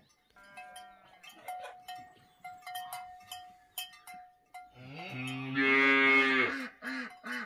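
Cow mooing: one long, loud, low moo starting about five seconds in, followed by a few shorter calls near the end. Scattered light clicks come earlier.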